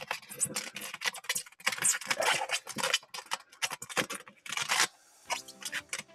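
Crisp crackling and rustling of hands working with a sheet of closed-cell sound-deadening foam and its backing. Background music comes in about five seconds in.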